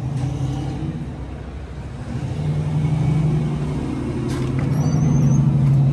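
Car engine running with a steady low hum that grows louder about two seconds in.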